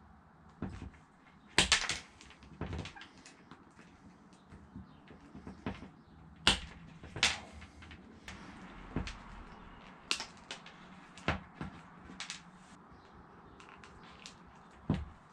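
Hand wire stripper/crimper tool snapping shut on small red and black wires as they are stripped and ring terminals are crimped on: sharp clicks every second or two, spaced unevenly, with light handling rustle between them.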